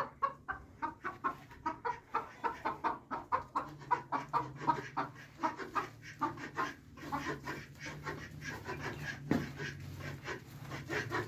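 Domestic chickens clucking in a rapid run of short calls, several a second, with a low steady hum underneath.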